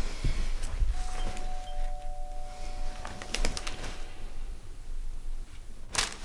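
Two-tone doorbell chime: a higher note about a second in, then a lower one, both ringing on for a couple of seconds before fading, signalling a visitor at the door. A few light clicks follow, and a sharp click near the end.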